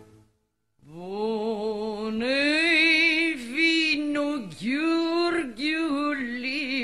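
Romanian folk song: a woman's voice sings alone, slow and free, with heavy vibrato and long drawn-out ornamented notes. It comes in after an instrumental passage breaks off at the start and is followed by under a second of silence.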